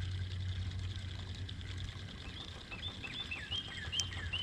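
A bird singing: a quick run of short high notes, some sliding down, starting about two and a half seconds in, over a low steady hum.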